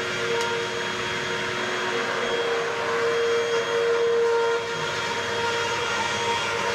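Bagless upright vacuum cleaner running steadily, a constant motor whine over rushing airflow, kind of loud, with its dirt canister pretty full.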